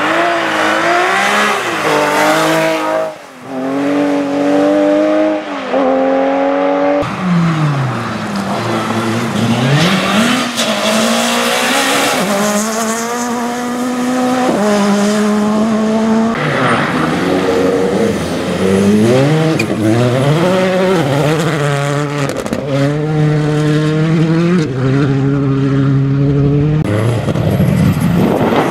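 Rally car engines at full throttle, the note climbing and then dropping sharply at each gear change, several times over as the cars accelerate hard.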